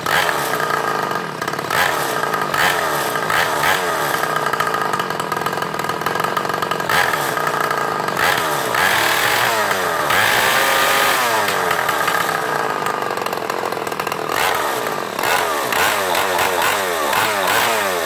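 Go-kart buggy's air-cooled single-cylinder motorcycle engine running, its revs rising and falling again and again, with the highest revs about halfway through and another run of quick revs near the end.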